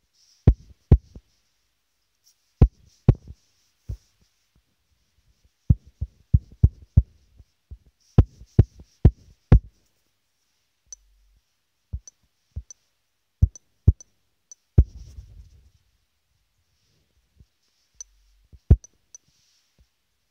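Irregular sharp taps and knocks on a phone's touchscreen as strokes are drawn on it, picked up through the phone's own microphone, with a short rubbing rumble about fifteen seconds in.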